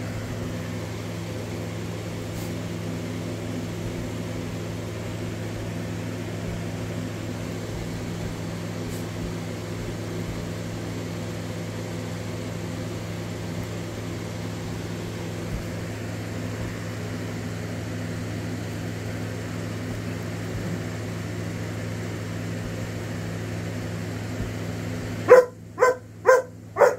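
Window air conditioner running with a steady hum. About 25 seconds in, a dog starts barking in a quick, regular run of about two barks a second.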